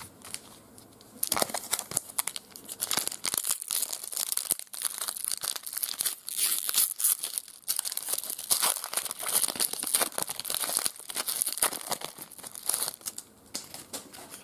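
A foil trading-card pack wrapper being torn open and crinkled by hand: dense crackling that starts about a second in and stops shortly before the end.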